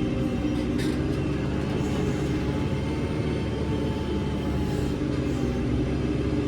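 JCB 3CX backhoe loader's diesel engine running steadily under working load, with a faint whine rising and falling in the middle and a short click about a second in.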